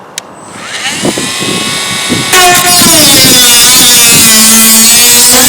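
Dremel rotary tool switched on with a click, its whine rising as the motor spins up, then running loud and steady from about two seconds in, its pitch dipping slightly as it bites into the work, cutting off protruding screw ends.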